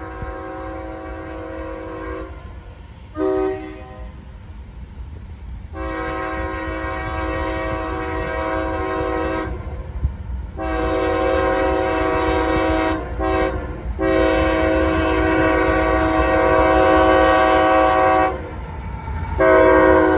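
CSX freight locomotive's multi-chime air horn sounding a series of blasts: a long one, a short one about three seconds in, then several long blasts with brief breaks, growing louder as the train nears. A low rumble of the moving train runs underneath.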